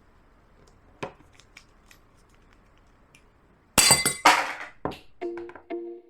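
A few faint clicks, then a loud, sudden glassy crash with clinking about four seconds in, then plucked-string background music with a steady beat starting near the end.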